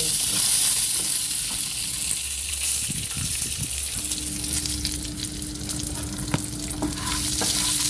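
A salted snack frying in a lot of oil in a pan, sizzling steadily while it is stirred, with frequent light scrapes and clicks against the pan.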